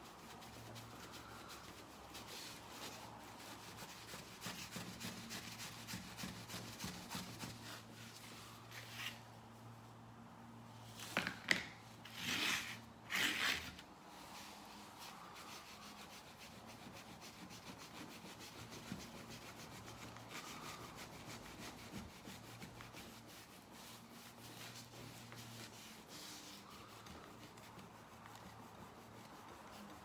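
A cloth rubs metal polish over a tarnished brass door handle and backplate in steady back-and-forth strokes. The scrubbing is faint, with a few short, louder scuffs about halfway through.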